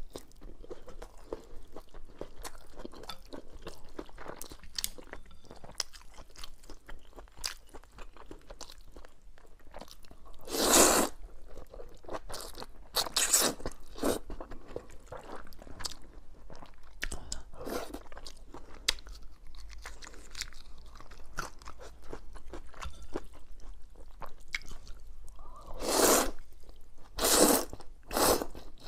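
Close-miked eating of spicy noodles: steady chewing and crunching with many small crackles. Several louder, longer noisy bursts stand out, a few about a third of the way in and more near the end.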